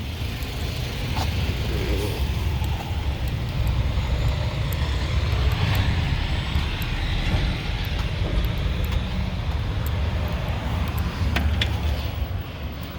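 Steady low vehicle rumble heard from inside a car's cabin.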